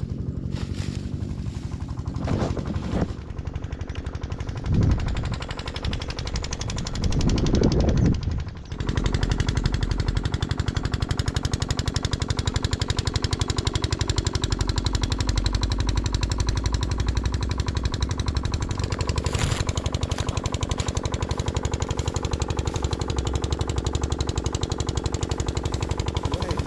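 A small engine running steadily, its fast, even pulsing heard throughout. A few louder bumps come in the first several seconds, and a sharp click about two-thirds of the way in.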